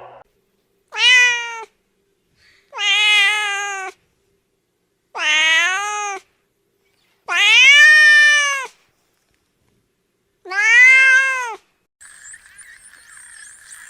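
Domestic cat meowing five times, each meow rising then falling in pitch, with short silences between them.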